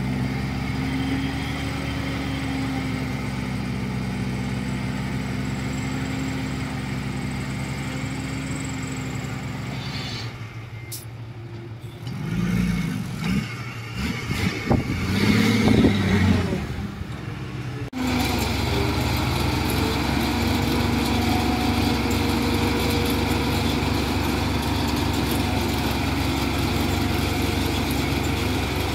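Heavy earthmoving machine's diesel engine running steadily. About a third of the way in it revs up and down for several seconds, then the sound changes abruptly back to steady running.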